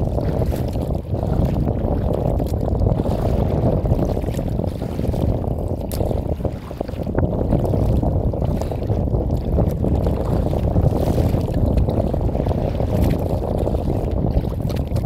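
Wind buffeting the microphone of a smartphone mounted on the front of a kayak: a loud, gusting low rumble with a few faint ticks.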